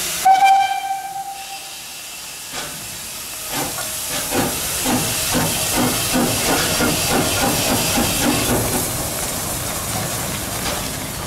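Small DSB class F steam tank locomotive No. 441 gives one short whistle blast, then starts off with exhaust chuffs that come faster as it pulls away, over a steady hiss of steam.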